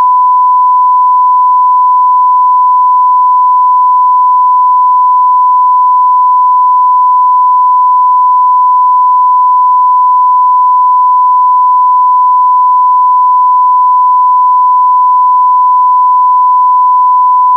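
Censor bleep: one loud, steady sine tone at about 1 kHz, held without a break.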